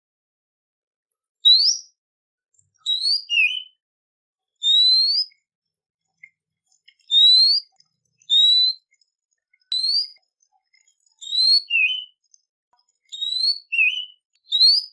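Songbird song used as a training recording: about a dozen short, clear whistled notes, most of them rising in pitch, given singly or in quick pairs with silent pauses between.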